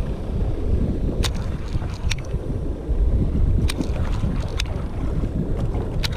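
Low rumble of wind buffeting the microphone aboard a fishing boat at sea, with five sharp short knocks scattered through it.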